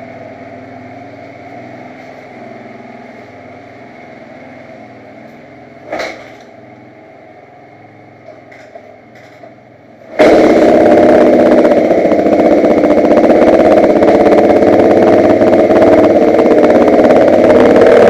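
Motocross bike engine running steadily at idle, with a single knock about six seconds in and a few light clicks. About ten seconds in the engine sound suddenly becomes much louder and stays loud and steady.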